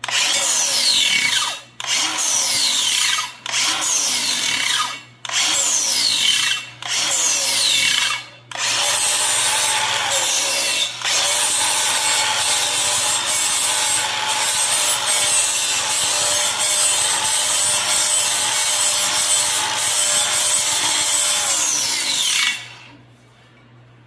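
Angle grinder with a worn flap disc sanding curb rash out of the lip of an alloy wheel in light passes. It runs in short runs of about a second and a half with brief breaks, then in one long continuous pass, and cuts off shortly before the end.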